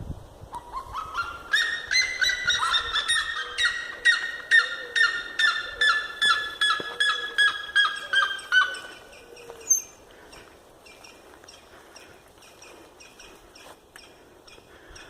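A bird calling loudly in a long rapid series, about three calls a second, the pitch slowly falling, the series breaking off about nine seconds in and followed by fainter, quicker calls.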